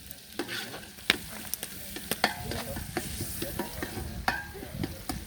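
A utensil stirring food in a cooking pot over heat: irregular scrapes and sharp clicks against the pot, a few ringing briefly, over a steady sizzle.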